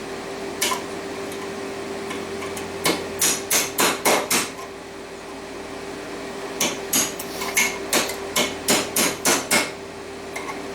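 Hammer tapping stainless steel pieces down into a steel canister to pack them tight for a canister forge weld: one lone strike, then a quick run of about six sharp metallic blows, and later a longer run of about ten.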